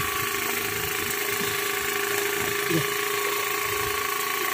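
A small engine running steadily, with a constant drone and a few faint knocks.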